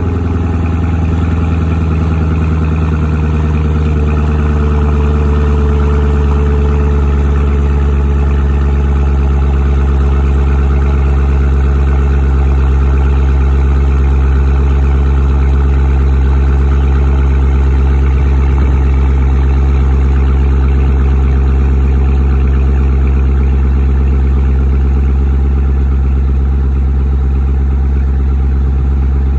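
2014 Chevrolet Corvette Stingray's 6.2-litre LT1 V8 idling steadily and loudly after a cold start, its exhaust valves open through the quad tailpipes.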